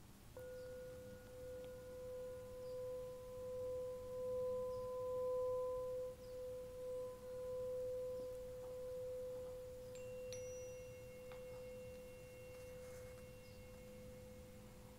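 A struck tuning fork rings with one steady pure tone that begins just under half a second in and swells and fades slowly as it sustains, used as a healing frequency. About ten seconds in, a fainter, higher ring joins it with a light click.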